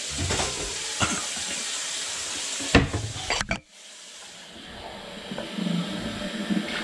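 Kitchen tap running into a stainless steel sink while a drinking glass is held under the stream and filled. There are a couple of sharp knocks a little under three and a half seconds in, then a brief break before the running water resumes.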